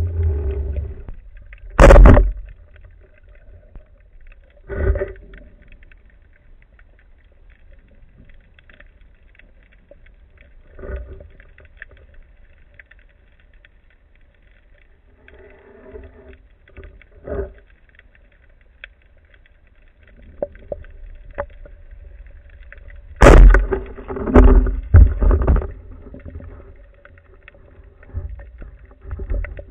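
Underwater knocks and thumps picked up by a camera mounted on a wooden speargun, over a low watery rumble: one sharp knock about two seconds in, a few fainter knocks, then a burst of loud thumps about three quarters of the way through.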